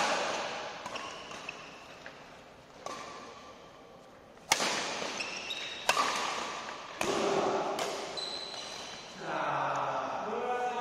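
Badminton rackets striking a shuttlecock back and forth in a doubles rally: a series of sharp smacks about one to two seconds apart, each ringing briefly in the large hall. Players' voices come in near the end.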